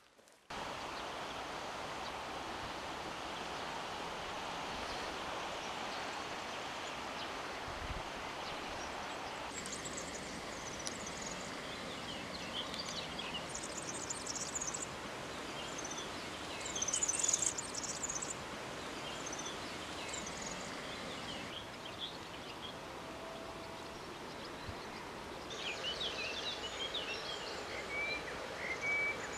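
Steady outdoor background noise with small birds chirping over it; the chirps start about a third of the way in and are busiest around the middle and near the end.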